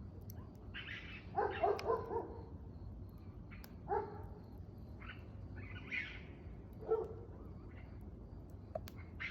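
An animal giving short pitched calls at irregular intervals: a quick run of several calls about a second and a half in, then single calls every second or two.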